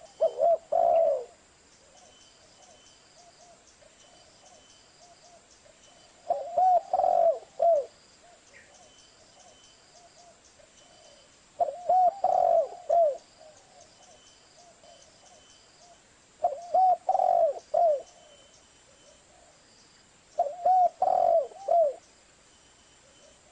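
Spotted dove cooing: five phrases about four to five seconds apart, each a quick run of three or four coos.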